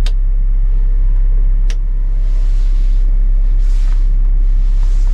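Diesel engine of a Cat wheeled excavator running steadily, a deep rumble heard from inside the cab. Two sharp clicks sound, one right at the start and one under two seconds in, and a faint hiss comes and goes in the second half.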